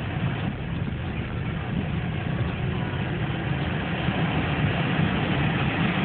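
Front-wheel-drive minivan driving over snow, heard from inside the cabin: a steady low engine rumble with road and tyre noise.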